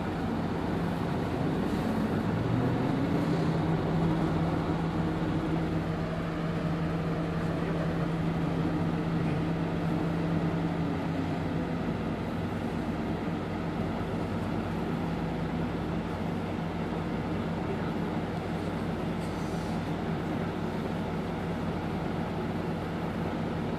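Hino BJG-HU8JLFP city bus under way, heard from inside the cabin: its engine rises in pitch as it pulls away a couple of seconds in, then runs steadily with road noise.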